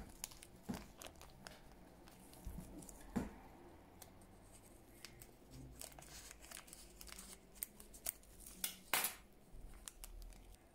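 Small scissors snipping a thin plastic bag, with the plastic crinkling as it is pulled open: a scattering of sharp snips and short rustles, the loudest about nine seconds in.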